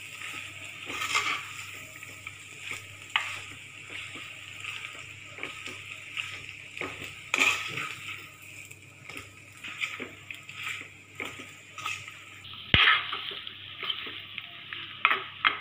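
A metal spoon stirring and scraping a dry chicken-and-coconut mixture in a clay pot on the stove, in irregular scrapes and knocks over a steady frying hiss. The sharpest knock comes near the end.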